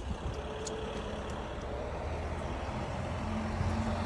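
Flatbed recovery truck's engine running as it drives up the street, a low steady drone whose hum rises a little and grows slightly louder near the end.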